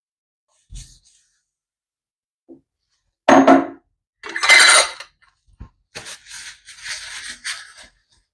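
Kitchenware being handled and set down: two clattering knocks about halfway through, then about two seconds of scraping and rustling.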